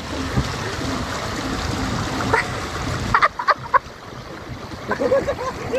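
Water rushing steadily down the open chute of a water slide, with a few brief voices cutting in.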